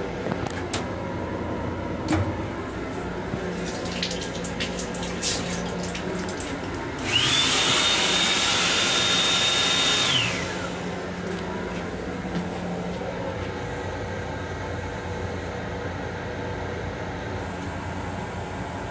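M7 railcar toilet flushing about seven seconds in: a loud rush with a whine that rises, holds for about three seconds, then falls away. A steady hum from the moving train lies under it, with a few light clicks before the flush.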